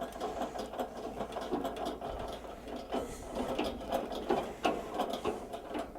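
A Phillips head screwdriver turning a screw by hand to fix a rubber foot to the bottom of a portable grill: a run of small, irregular clicks and creaks.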